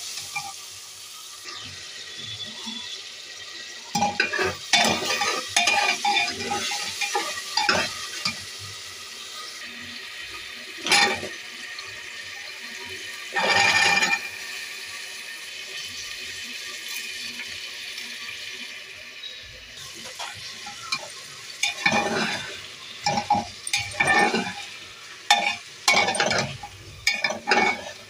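Oil and masala sizzling in an aluminium pressure cooker while a metal slotted spoon scrapes and stirs against the pot in short bursts. About halfway through, vegetables are tipped in with a brief loud rush of sizzling; near the end the spoon scrapes repeatedly while stirring the rice, potatoes and peas.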